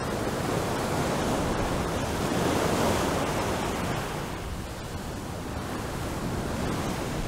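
Open-sea waves washing, a steady rushing noise that swells about three seconds in and then eases.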